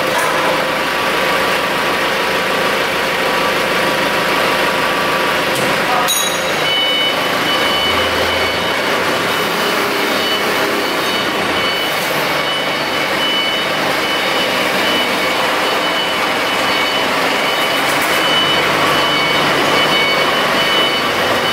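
Ricardo diesel engine of a 250 kW open-frame generator set running steadily. About six seconds in there is a click, and a steady high whine joins the engine noise from then on.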